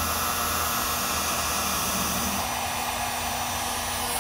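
Electric heat gun running steadily, its fan blowing hot air onto a heat-shrink butt connector to shrink and seal a crimped wire splice.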